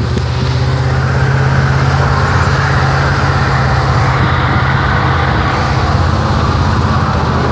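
1972 Ford F250's carbureted engine running at freeway speed, heard inside the cab as a steady low drone with road and wind noise.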